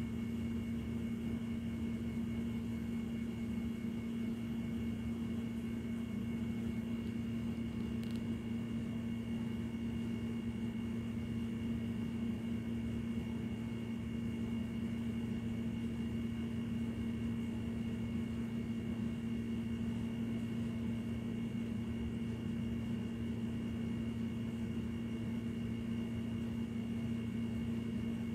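Steady machine hum with a noisy low rumble and two faint, high, even whines above it, unchanging throughout, with one faint click about eight seconds in.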